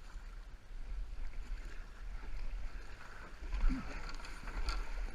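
A canoe being paddled on a river: water rushing and splashing against the hull and paddles as a steady hiss, over a low rumble.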